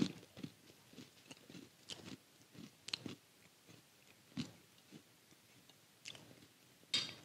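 A cracker with cheese spread being chewed close to a microphone: scattered faint crunches and mouth clicks, with a louder crunch near the end.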